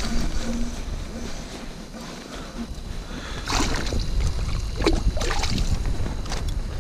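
Wind rumbling on the microphone, with water splashing and sloshing in the ice-fishing hole a few times from about three and a half seconds in as a walleye is pulled up through it.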